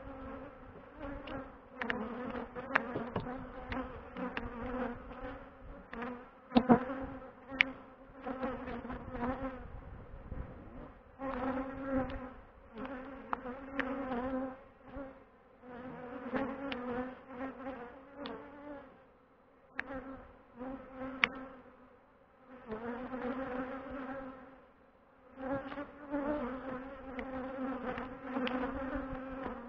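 Honeybees buzzing close to the microphone around an open hive, a low drone that swells and fades as bees fly past, with a few sharp clicks.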